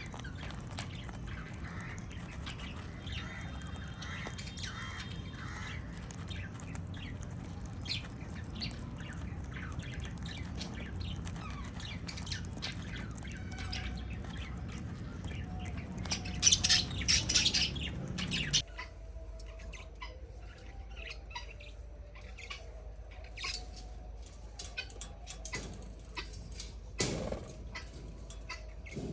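Small pet parrots chirping and squawking, many short calls one after another, with a loud burst of squawks a little past halfway.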